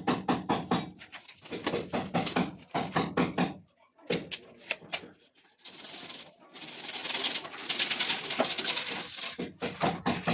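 Men talking, then about four seconds of harsh, rasping noise from work on the plumbing, then talking again.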